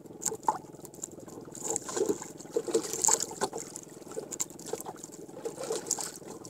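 Water lapping and splashing against the hull of a small wooden outrigger canoe, irregular small gurgles and slaps, busiest two to three seconds in, over a faint steady low hum.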